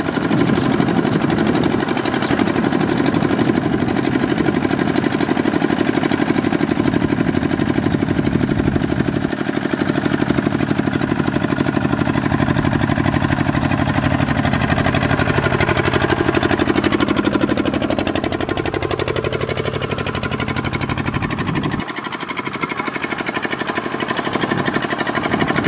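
Two-wheel walking tractor's single-cylinder diesel engine running steadily while hauling a trailer loaded with rice sacks. Its pitch dips and comes back up about two-thirds of the way through, and the sound drops a little near the end.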